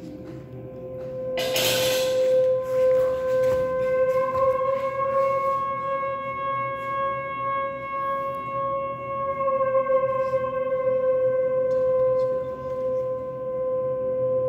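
Live accompaniment music: a single high note held steadily without a break, with a short hissing swell about one and a half seconds in.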